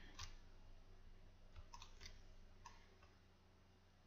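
Near silence with a few faint clicks from a computer mouse, stopping about three seconds in.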